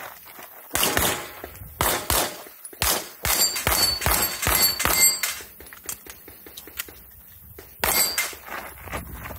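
Handgun shots fired in quick pairs, with steel plate targets ringing when hit during a fast string in the middle; a short lull near the end, then another pair of shots.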